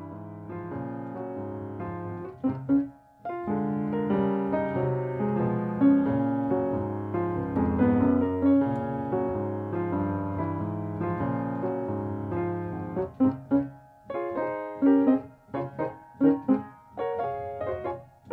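Background piano music: held chords and melody, then short, separate chords in the last few seconds.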